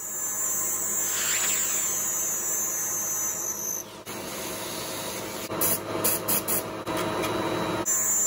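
Milling machine running with a tap in its spindle cutting threads into a hole in a steel plate: a steady motor hum with a high whine. Several short, sharp scraping sounds come in the second half.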